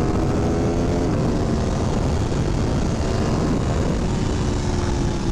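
Aprilia Tuono V4 1100's V4 engine pulling hard at speed, heard from the rider's position under loud wind rush; the engine note fades into the wind about a second in and returns faintly near the end.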